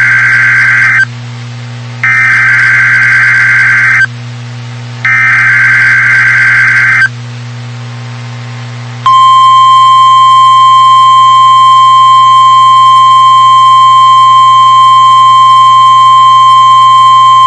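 Emergency Alert System broadcast on NOAA Weather Radio: the SAME digital header, a harsh buzzing data burst sent three times with short gaps, then about nine seconds in the steady 1050 Hz Weather Radio warning alarm tone begins and holds.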